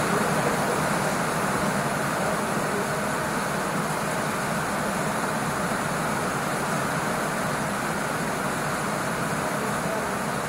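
Steady rushing noise that holds at an even level without pauses.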